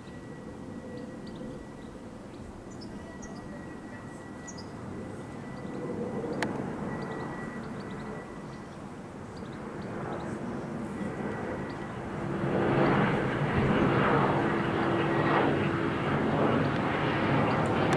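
Airbus A320neo jet with Pratt & Whitney geared turbofan engines passing overhead on its descent, its rumble low at first and then swelling sharply about two-thirds of the way in as it comes closer, with a steady hum running through it.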